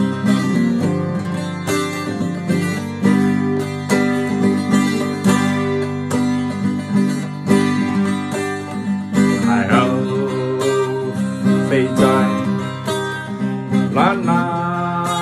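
Acoustic guitar strummed in a steady rhythm of chords. In the second half a man's voice comes in with a few drawn-out, wavering sung notes over it.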